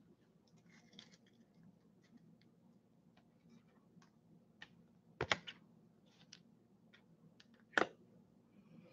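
Faint, scattered light clicks and taps, with a short cluster of sharper clicks a little past halfway and one more sharp click near the end.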